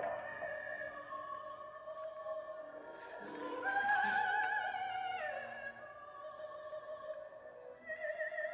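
Slow, dramatic operatic music: long held notes with a wide vibrato, swelling about four seconds in, then sliding down in pitch.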